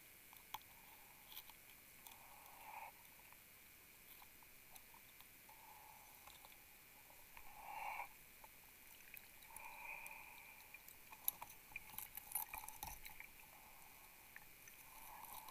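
Near silence underwater, with a few faint soft puffs a few seconds apart and a short run of small clicks after about eleven seconds.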